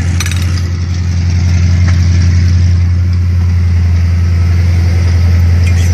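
Engine running steadily at idle, a deep, even drone with a fine regular pulse.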